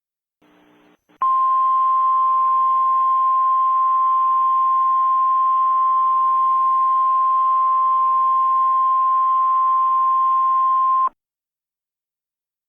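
Emergency Alert System alert tone: one loud, steady, unbroken high tone that starts about a second in, lasts about ten seconds and cuts off suddenly near the end.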